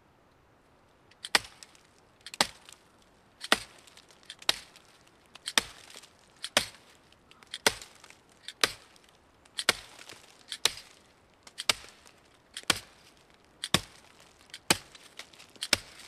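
Zippo 4-in-1 Woodsman's small axe head chopping into a dry, weathered dead log: sharp, evenly paced chops about once a second, starting about a second in.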